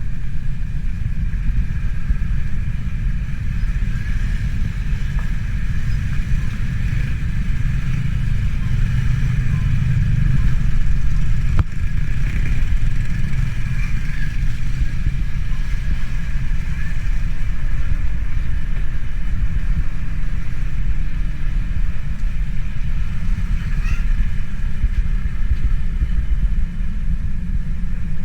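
Motor vehicle running steadily with a low rumble, and a fainter steady higher hum over it.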